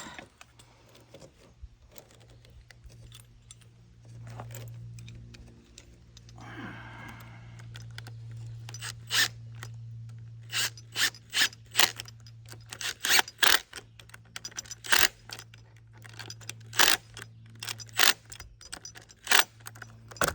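Small steel hardware clinking and tapping in irregular sharp strikes, sometimes three or four in quick succession, over a steady low hum; a short scrape comes about six seconds in.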